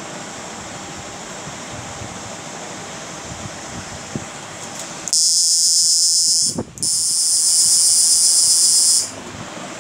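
Homemade IGBT electro-fishing inverter running under a load of heater lamps, with a steady hiss; about five seconds in, a loud high-pitched hiss starts, breaks off for a moment, and cuts off about four seconds later.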